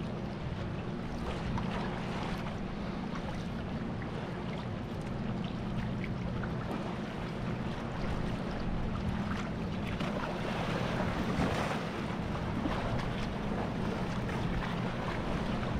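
Water splashing and lapping around a carbon-Kevlar sea kayak under way, with wind on the microphone and a steady low rumble underneath.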